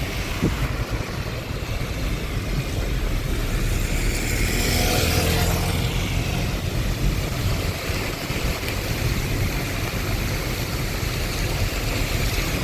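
Steady vehicle and road noise with a heavy low rumble, as from riding through or beside traffic. A faint pitched tone is heard about five seconds in.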